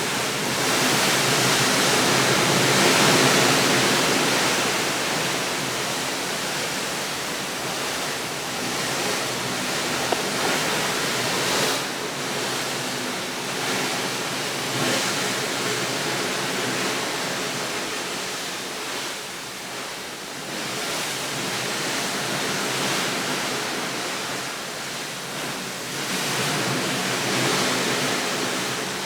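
Rushing water: a steady full hiss that swells and eases every several seconds.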